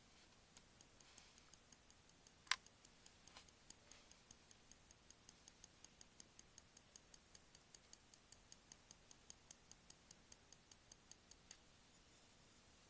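Light, regular ticking of metal tweezer tips tapping on masking tape stuck over an EarPods microphone, about four or five faint ticks a second, with one sharper click a couple of seconds in.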